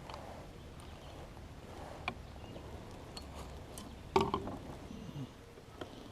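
Scattered light clicks and knocks from fishing gear being handled in a small boat, with one louder knock about four seconds in, over a low steady rumble.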